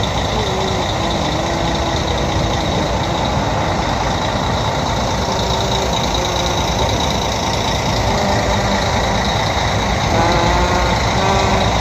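Steady engine drone and rumble on a ferry's vehicle deck, with a constant high whine running under it. Faint voices come in near the end.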